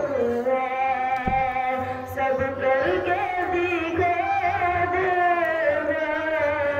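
A voice singing or chanting a long, held melodic line whose notes waver and slide in pitch.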